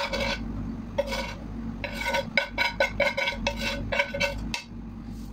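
Metal spatula scraping and clinking against a cooking pot as cooked rice is stirred and mixed: a run of quick scrapes and taps, each with a short metallic ring, easing off near the end.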